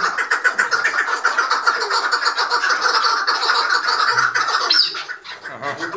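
Chukar partridges calling in a fast, continuous chatter of repeated notes, with a brief lull about five seconds in.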